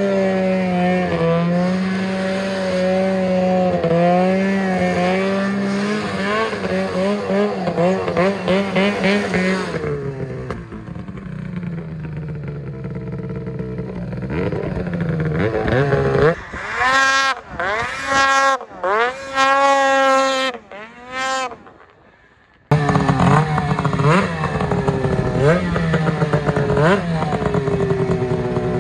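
Ski-Doo 600RS two-stroke snowmobile engine held at high revs with a wavering pitch while the sled spins donuts, then easing off. It is then revved in a series of short bursts. After a brief dropout it runs on, blipped about once a second.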